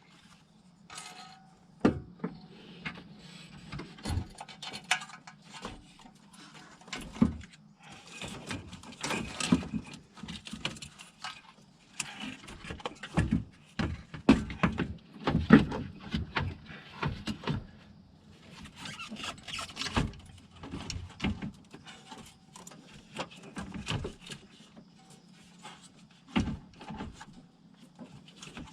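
Hand work on a car radiator and its fittings: irregular clicks, knocks and scraping as the small rubber pieces and hoses are moved over to the replacement radiator.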